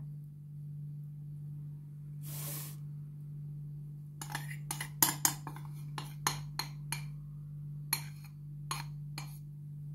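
A metal spoon clinking and scraping against a glass bowl, about a dozen irregular clinks, as melted chocolate glaze is scraped out onto the cake. A short soft hiss comes a couple of seconds before the clinks, and a steady low hum runs underneath.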